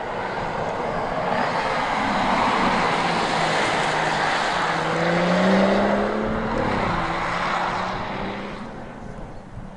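BMW 4 Series Gran Coupé driving past at speed: engine and tyre noise swell to a peak, the engine note climbs and then drops sharply just past the middle, and the sound fades near the end.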